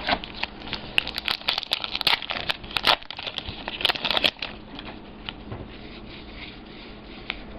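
A 2014 Topps Gypsy Queen baseball card pack's wrapper crinkling and being torn open by hand, with a dense run of sharp crackles for about four and a half seconds, then only a few faint ticks of card handling.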